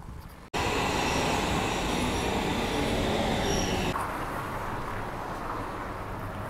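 Steady background noise with no single source standing out, cut together from two short clips: a louder stretch, then from about four seconds in a slightly quieter one.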